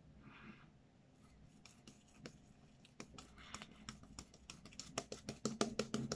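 Razor scraping through lathered stubble in short strokes, each pass a crisp scratch. The strokes start sparse and come thick and louder over the last second or so, several a second.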